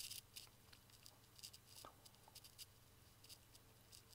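Near silence: a faint steady low hum with faint, irregular small ticks as the bench power supply's voltage knob is turned slowly by hand.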